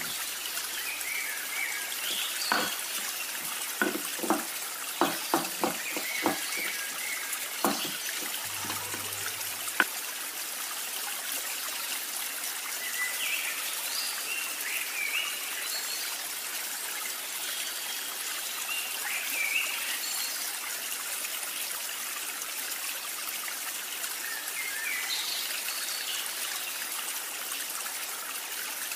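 Stone pestle knocking and grinding in a stone mortar (ulekan and cobek), crushing whole chilies and garlic into sambal. A run of sharp knocks comes in the first ten seconds, then it quietens to grinding. A steady hiss lies under it all.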